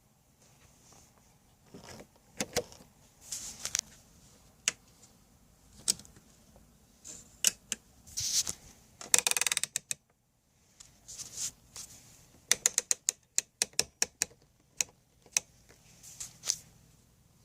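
Clicking of a Hickok 539A tube tester's rotary selector switches and lever switches being set by hand: scattered sharp clicks, a fast ratcheting run about nine seconds in, and a quick string of clicks from about twelve to fifteen seconds in.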